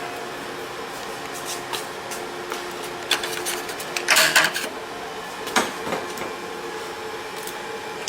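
Workshop machinery humming steadily, with a few sharp metallic clicks and knocks and a louder half-second noisy scrape about four seconds in, from work on a saw blade.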